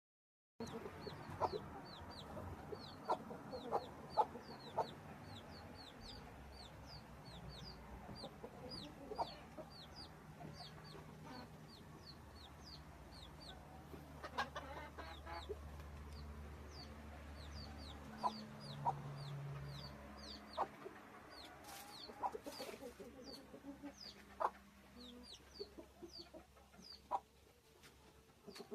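Chickens clucking now and then, with a quick high chirp repeating about twice a second behind them.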